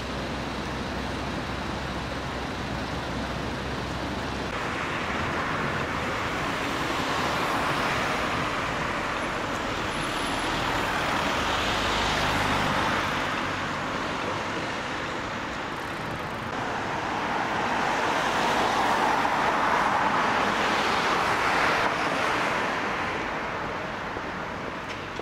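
Street traffic noise: road vehicles passing, the rushing noise swelling twice, around 8 to 12 seconds in and again around 18 to 22 seconds in.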